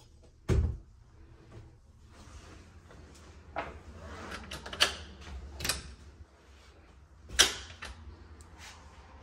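Several knocks and thumps, the loudest a low thump about half a second in and a sharp knock about seven seconds in, over a low hum.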